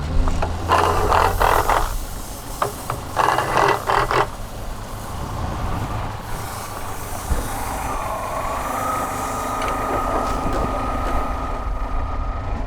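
Heavy machinery running. There are two short noisy bursts in the first few seconds, then a steady whine sets in about eight seconds in, rising slightly before holding level.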